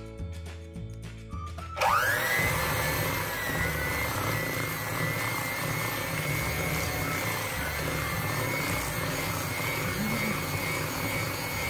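Background music for about the first two seconds, then an electric hand mixer switches on with a rising whine and runs steadily, its beaters churning butter and eggs in a stainless steel bowl.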